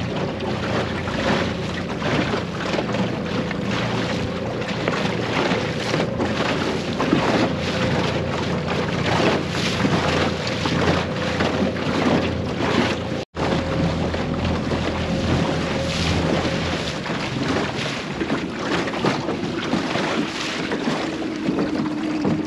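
Small outboard motor running steadily, pushing an aluminium dinghy along, with wind buffeting the microphone and water rushing past the hull. The sound breaks off for a moment about halfway, and the engine note sits lower near the end.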